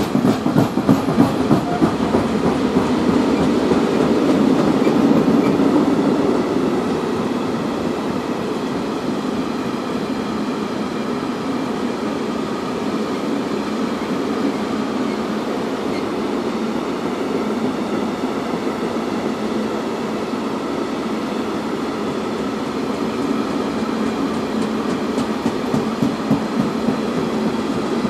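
Freight train of open-top coal wagons rolling past: a steady rumble of steel wheels on the rails, with a rhythmic clatter of wheels over rail joints, loudest in the first few seconds and again near the end.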